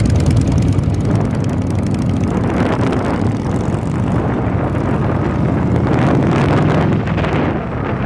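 Cruiser motorcycle engine running as the bike rides along, heard from the handlebars, with wind on the microphone. The sound is a steady low rumble.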